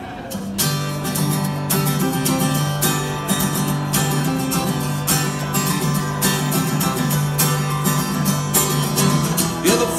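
Small acoustic band playing a song's instrumental intro: acoustic guitar strummed in a steady rhythm, with mandolin and accordion, over steady held low notes.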